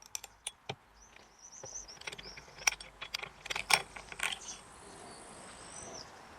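Metal clicks and rattles as the blade and its clamping bolt on a Makita TM30D oscillating multi-tool are handled and worked loose. They come thickest about two to four seconds in.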